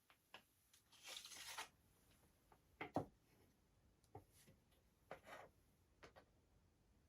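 Quiet handling noises: a brief rustle about a second in, then a few scattered light clicks and taps of small hard objects being picked up and set down.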